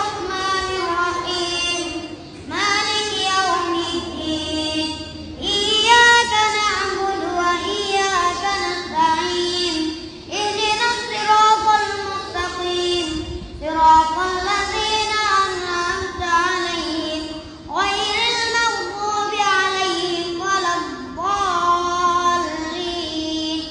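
A young boy's voice chanting Quranic recitation as prayer leader, in long melodic phrases with short breaks for breath between them.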